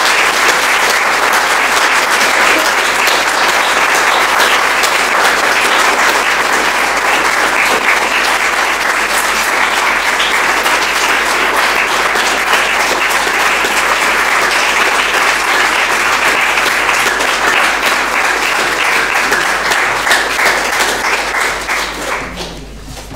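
Audience applauding, a long, dense round of clapping that tapers off near the end.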